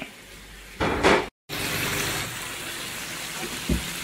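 Fish roe in tomato sauce simmering and sizzling in a frying pan on a gas burner: a steady hiss, with a short loud sound about a second in and a soft thump near the end.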